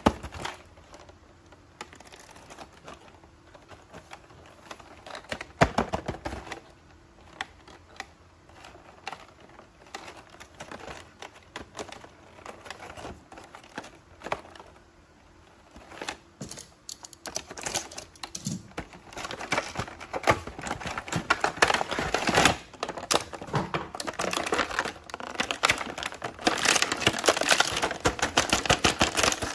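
Hands unboxing toy action figures: plastic packaging crinkling, with many quick clicks and taps that get busier and louder about two-thirds of the way in.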